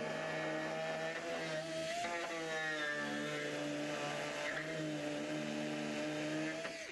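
Pneumatic die grinder running at speed and cutting fiberglass: a steady high whine whose pitch wavers slightly as the bit bears into the material. It cuts off suddenly at the end.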